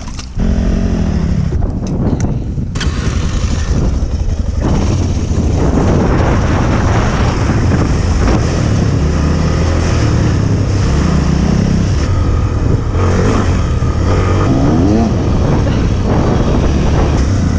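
Single-cylinder off-road motorcycle engine running under way, the revs rising and falling, over a steady rush of wind and spray noise; the sound jumps to full loudness a moment in.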